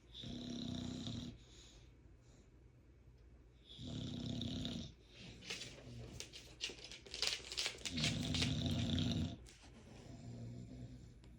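Bulldog snoring: three loud snores about four seconds apart, each lasting a second or so, with a crackling rattle in the breath between the second and third.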